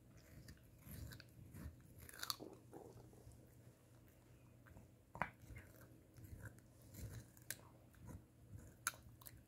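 A Shih Tzu chewing and crunching a chunk of carrot: quiet, irregular bites and crunches, with a few sharper cracks about two, five and nine seconds in.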